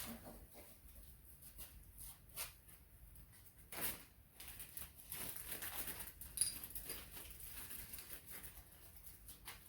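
Faint, scattered clicks and taps of hand tools and metal engine parts being handled during an engine teardown, with one louder knock about four seconds in and a busier run of small clinks a second later.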